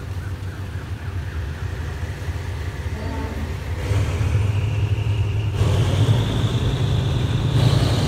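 Passenger train pulling away, heard from an open carriage window: a low rumble of the diesel locomotive and wheels that grows louder about halfway through as the train gathers speed, with a faint whine rising in pitch.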